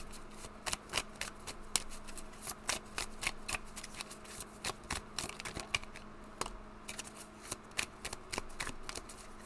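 A deck of cards shuffled by hand: a quick, irregular run of light card snaps and riffles, several a second.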